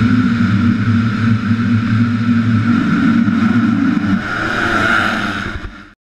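A full field of motocross bikes revving together at the starting gate, then launching off the line. The engine sound cuts off abruptly near the end.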